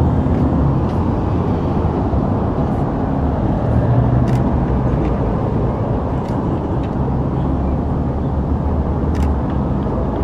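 Steady road traffic noise from cars running on a multi-lane road, with a low engine drone underneath and a few faint sharp clicks.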